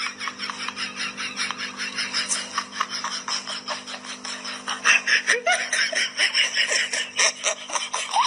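A person laughing in a long run of quick giggles, about five bursts a second, getting louder about five seconds in.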